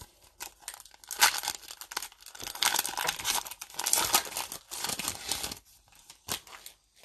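A foil trading-card pack (Panini Mosaic basketball) being torn open, its wrapper crackling and crinkling densely for about five seconds, then a couple of brief crinkles near the end.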